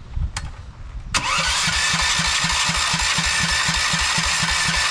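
A mini bike's small engine being cranked by its electric starter, powered from a jump box. Two clicks come first. About a second in, the starter engages and the engine turns over steadily with an even pulsing beat, without catching.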